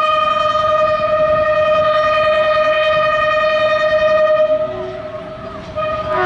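A GRU-20 diesel locomotive's horn blows one long steady blast that cuts off about four and a half seconds in, then sounds again near the end on a lower, different chord, over the running noise of the passing passenger train.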